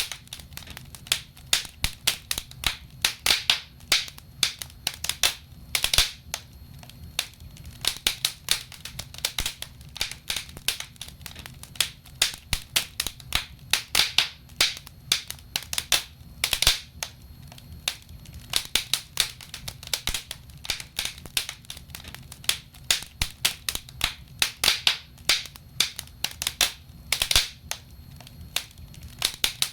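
Wood logs burning in a fireplace, crackling and popping irregularly several times a second over a low rumble.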